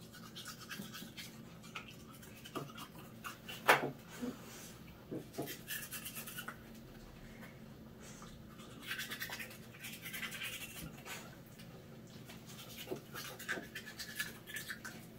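A dog's teeth being brushed with a toothbrush: short spells of scratchy bristle scrubbing, with a sharp click about four seconds in.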